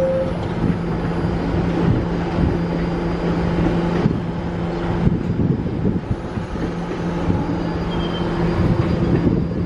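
R46 subway train standing at the platform with its doors closed: the last note of the two-tone door-closing chime at the very start, then the train's equipment giving off a steady low hum that fades for a moment about five seconds in.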